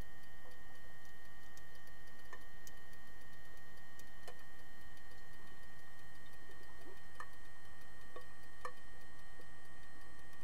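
Underwater pool sound through a submerged camera: a steady hum with faint high whining tones, and a handful of sharp, irregular clicks, typical of underwater hockey sticks and puck knocking as heard through the water.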